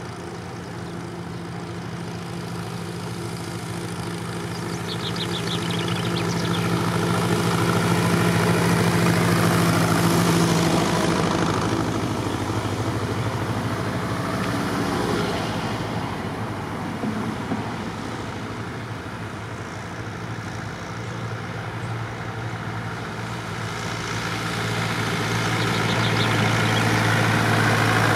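Vintage tractor engines running steadily as they pass along a lane: one grows loud about eight to ten seconds in and fades, cars go by in between, and another tractor draws close and loud near the end.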